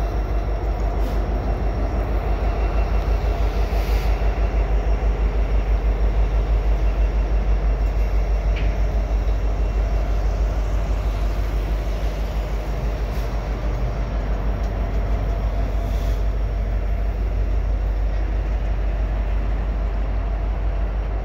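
Freight train creeping past at a crawl: the two EMD SD70M-2 diesel locomotives' two-stroke V16 engines throb steadily and low, with freight cars rolling slowly behind.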